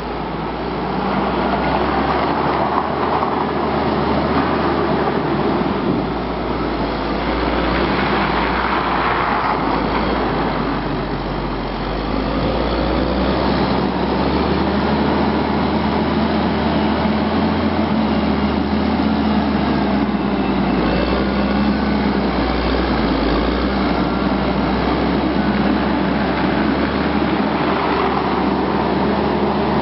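Caterpillar 140M motor grader's diesel engine running steadily while it clears snow with its front plow, side wing and mid blade, the steel blades scraping over the snow-packed road.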